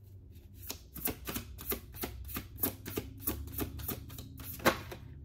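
A tarot deck being shuffled by hand: a quick, uneven run of soft card clicks and flicks, several a second, with one sharper snap of the cards near the end.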